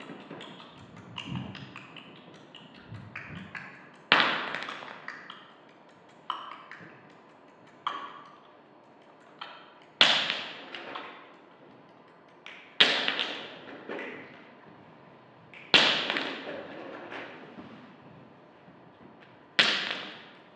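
About eight sharp knocks at uneven gaps, a second to four seconds apart, each ringing away over about a second. The louder ones come in the second half.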